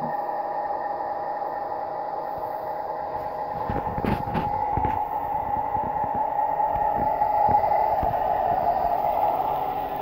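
Märklin model PA-1 locomotive and freight wagons running on the layout track: a steady electric motor hum with wheels clicking over the rails, a quick cluster of clicks about four seconds in and the sound growing a little louder as the train comes close near the end.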